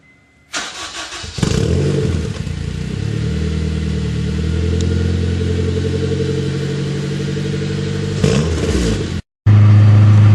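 Turbocharged Honda K20A3 four-cylinder of an EP3 Civic Si starting: under a second of uneven starter cranking, then it catches and settles into a steady idle. Near the end the revs rise briefly, the sound drops out for an instant, and a louder, deeper steady engine drone follows.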